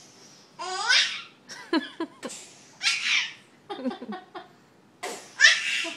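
A baby laughing in about five separate bursts, the loudest near the end.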